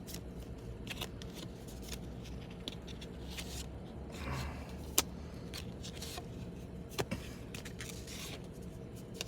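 Trading cards being handled and flipped through: light rustling and scraping with a few sharp clicks, the clearest about five and seven seconds in, over a low steady hum.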